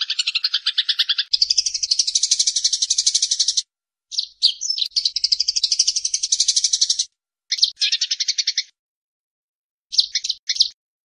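Eurasian tree sparrows giving their rapid, harsh chattering fight calls. The chatter comes in runs of a few seconds with brief silent gaps between, and ends with a few short separate chirps near the end.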